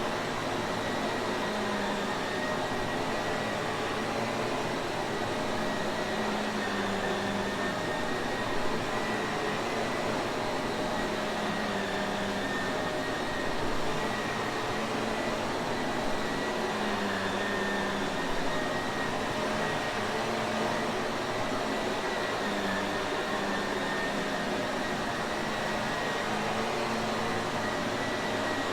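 Shark Navigator upright vacuum cleaner running steadily: a continuous motor whir and airflow rush with a faint steady high whine, swelling slightly now and then.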